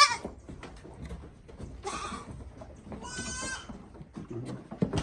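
Goats bleating: the end of a loud bleat at the start, then two more bleats with a wavering pitch about two and three seconds in, with light clicks and rustling in between.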